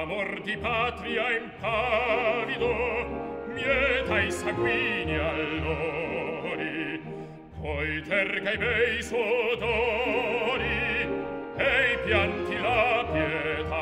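Male operatic singing with wide vibrato over a full orchestra, from a duet for baritone and bass. The sung phrases are broken by short pauses.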